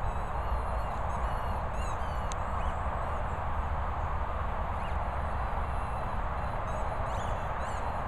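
Steady outdoor background noise, with short faint high bird chirps coming and going.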